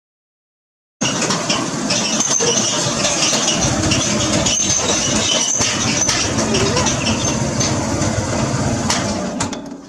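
Motorcycle engine running steadily, cutting in abruptly about a second in and fading away near the end.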